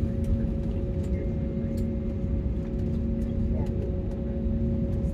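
Airliner cabin noise while the jet taxis on the ground: a steady low rumble with a hum of several fixed tones from the turbofan engines, heard from a window seat over the wing.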